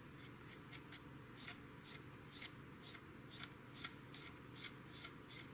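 Cotton swab rubbing in quick short strokes over the plastic skin of a 1/48 model aircraft wing, wiping off enamel panel-line wash: a faint, irregular run of small swipes and scratches, several a second.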